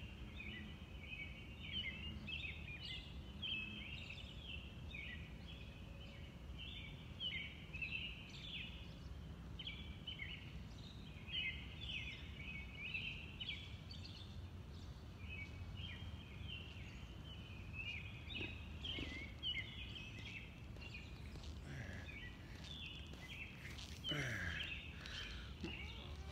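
Birds singing: a steady run of short, varied chirping phrases over a low steady rumble. Near the end, close footsteps and rustling come in.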